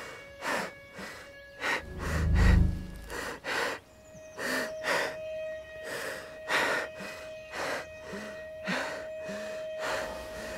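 A person gasping for breath, about two hard breaths a second, over a steady held drone of film score. A low rumble sounds about two seconds in.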